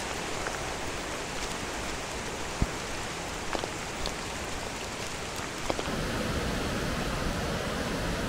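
Steady watery hiss with a few light ticks. About six seconds in, a louder, deeper rush takes over: the River Conwy in spate, gushing through the rocky Fairy Glen gorge.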